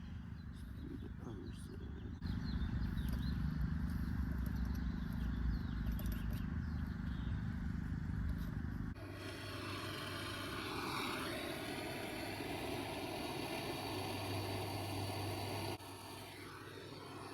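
Steady machinery hum and rushing air from running rooftop HVAC equipment. The sound jumps in level and character about two seconds in, again about nine seconds in and near the end, as if cut between takes.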